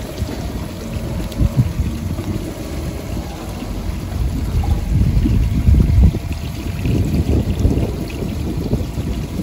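Water trickling from two pipes into a metal-lined wooden trough, nearly buried under gusty wind rumbling on the microphone.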